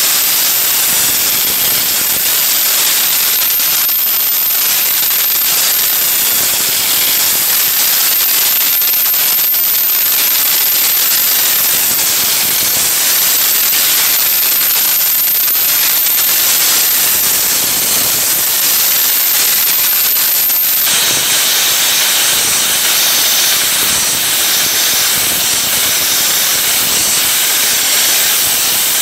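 Dry-ice blasting gun firing compressed air and dry-ice pellets against wooden siding: a loud, steady hiss as it strips an old wood-glaze coat. The hiss shifts in tone abruptly about two-thirds of the way through.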